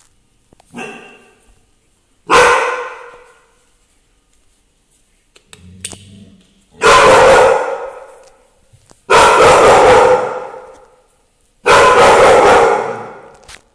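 Dog barking: a soft bark, then a loud one, then three more loud barks spaced a couple of seconds apart, each one dying away slowly.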